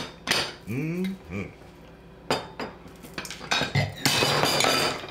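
Plastic butter dish and table knife handled on a kitchen counter: the lid clatters and the knife clinks against the dish, with a longer stretch of plastic rattling about four seconds in.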